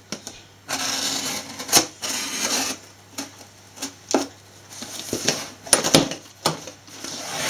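Craft knife scoring corrugated cardboard along a steel ruler: two scraping strokes of about a second each, then a series of sharp clicks and taps from the knife and ruler.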